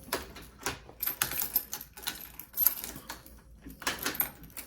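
Metal keys clicking and rattling against a doorknob lock as a key is handled and tried in it, in a run of short, irregular clicks.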